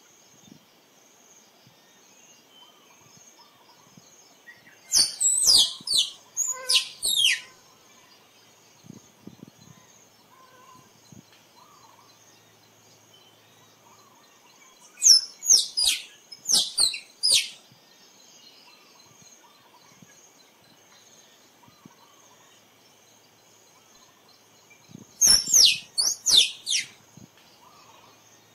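Squirrel calling in three bouts about ten seconds apart, each a quick run of sharp, high chirps that sweep steeply downward. A faint steady high insect hum runs underneath.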